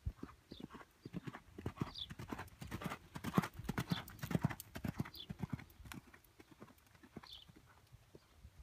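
A horse's hooves trotting on sand arena footing, a steady rhythm of soft thuds. The beats are loudest from about three to four and a half seconds in, as the horse goes by close.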